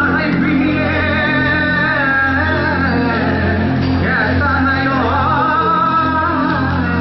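Recorded song playing loudly over a hall's sound system as dance accompaniment: a singer's gliding, wavering melody over a steady bass line.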